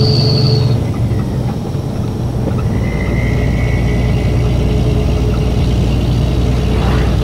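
Truck engine running steadily at cruising speed, with tyre and wind noise, heard from inside the cab.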